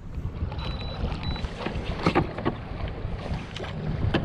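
Wind rumbling on the microphone, with scattered light knocks and clicks around a kayak.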